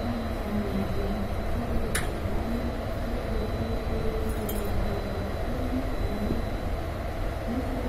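Steady hum of a ChS4 electric locomotive standing at the platform, with two short metallic clinks, about two seconds and four and a half seconds in.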